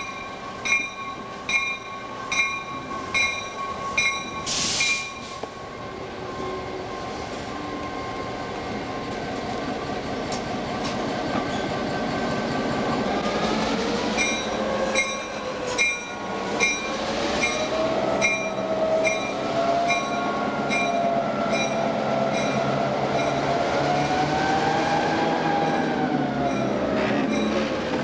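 EMD GP9 diesel locomotive creeping closer at low speed, its engine growing louder as it nears, with its bell ringing in a steady clang about every half second. The bell stops shortly after a brief hiss about five seconds in, then starts again about halfway through. In the second half a wavering squeal of wheel flanges on the curved track rises and falls.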